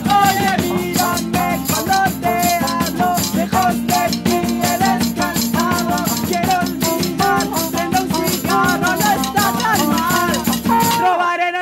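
Acoustic band playing a fast Latin-style tune: trumpet over strummed guitars and hand percussion. The band breaks off abruptly near the end.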